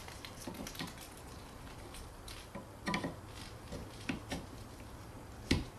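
Scattered light clicks and taps as a Bosch H309 rear wiper blade is handled and angled against the wiper arm to fit it, the sharpest click near the end.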